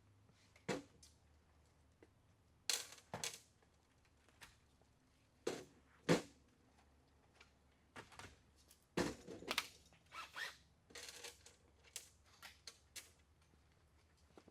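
Irregular clicks, taps and clunks of hand installation work, with tools and parts being handled and set down, some dozen sharp knocks spread unevenly.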